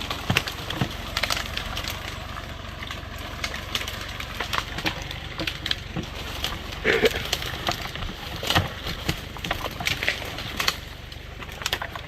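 Log being winched out through brush and briars, sticks and brush snapping and crackling in many sharp, irregular cracks, two louder snaps about seven and eight and a half seconds in. Underneath, the steady low drone of the Kubota tractor running its Farmi winch.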